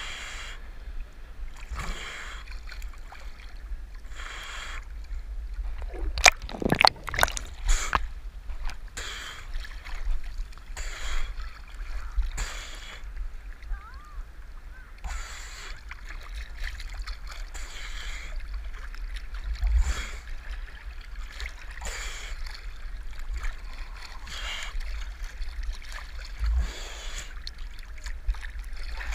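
Seawater sloshing and splashing against a waterproof action camera held at the surface while swimming, with a low rumble underneath. Short splashes come about every second, with a cluster of sharper, louder splashes about six to eight seconds in.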